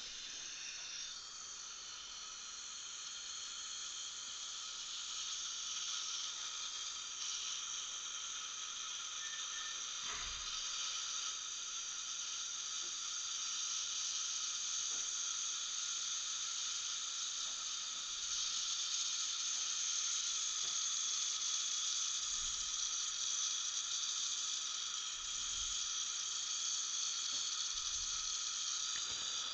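Dental micro-suction running: a fine suction tip drawing air and fluid at an implant site, giving a steady high-pitched hiss.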